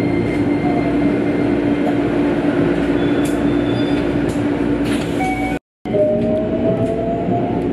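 Keikyu 1000-series electric train running, heard from inside the front car: steady motor whine and running noise as it pulls out. The sound cuts out for an instant about five and a half seconds in, then comes back with a steadily rising motor whine as the train gathers speed.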